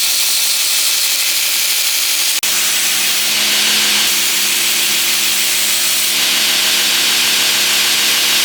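Belt grinder running with a hardened knife blade pressed to the abrasive belt, a steady loud hiss as the finish-grind bevels are ground. The sound drops out for an instant about two and a half seconds in, then carries on.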